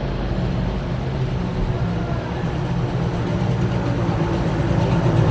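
A motor vehicle's engine running close by on the street, a steady low hum that grows a little louder near the end.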